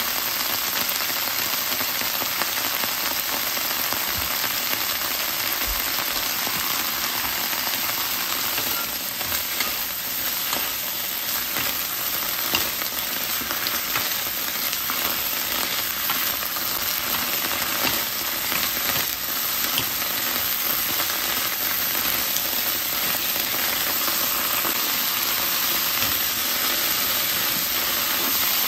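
Broccoli and bell pepper strips sizzling as they stir-fry in a nonstick pan, with a steady hiss. From about a third of the way in, a wooden spatula stirs and scrapes them, adding many small clicks.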